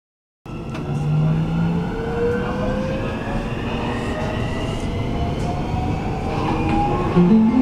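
Nuremberg U-Bahn driverless train, a DT3 unit, accelerating through a tunnel, heard from inside the front of the car: the traction motor whine rises slowly in pitch over a steady rumble of wheels on rail. Near the end another steady tone comes in.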